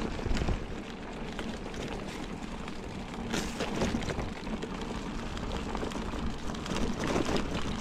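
Tyres of a loaded Salsa Fargo bikepacking bike rolling over a dirt forest track strewn with leaves: a steady gritty rolling noise with many small clicks and ticks.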